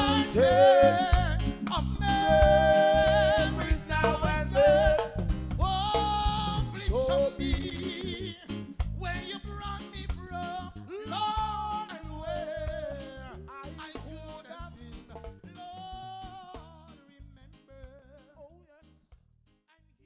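Live reggae band playing with a voice singing long, sliding notes over bass and drums. The music dies away over the last several seconds.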